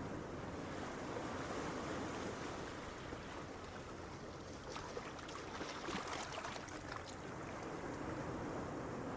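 Ocean waves breaking on a beach: a steady rushing wash, with a crackling fizz of surf about halfway through.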